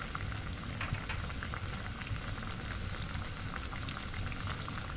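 Short ribs and garlic cooking in the last of their reduced water in a pot, bubbling and sizzling steadily with small scattered pops: the cooking water has almost boiled away.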